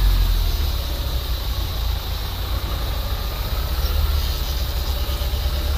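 Off-road vehicle's engine running with a steady low rumble.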